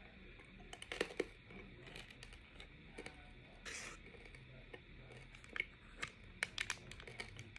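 Biting and chewing a Charleston Chew chocolate-covered candy bar close to the mouth: faint, crunchy clicks and crackles scattered throughout, with a short louder crunch about halfway through.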